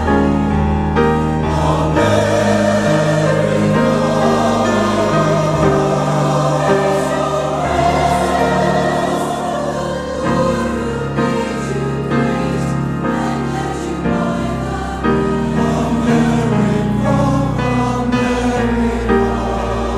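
Choir singing a hymn in held chords, over steady low accompanying notes.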